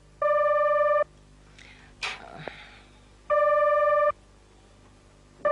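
Telephone ringing with an electronic ringer, an incoming call: steady, even-pitched rings just under a second long, two full rings and a third beginning near the end.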